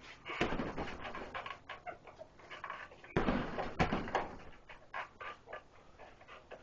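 Punches landing on a hanging heavy punching bag: a hard thud about half a second in and two more around three seconds in, with lighter, quicker hits between.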